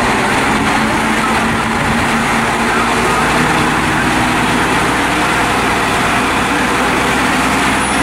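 Mount Washington Cog Railway diesel locomotive's engine running steadily, a low, even drone.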